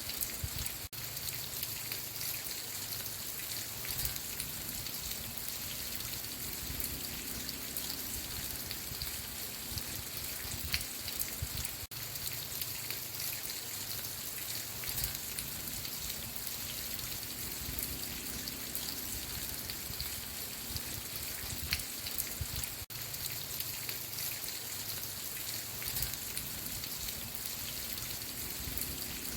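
Steady rain ambience: an even hiss of rainfall with scattered fine drop ticks, dipping briefly three times about eleven seconds apart.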